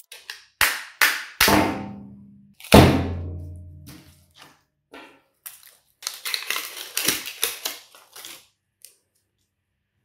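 A mallet strikes a microwave oven transformer's laminated steel core four times, the last two blows leaving a low metallic ring. About six seconds in comes a short run of clicking and rattling as the loosened core pieces are handled and pulled apart.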